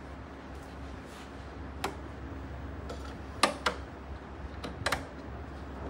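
A few sharp clicks and taps as a screwdriver and small parts are worked into the corner fitting of a plastic subwoofer cabinet; the loudest comes about three and a half seconds in. A steady low hum runs underneath.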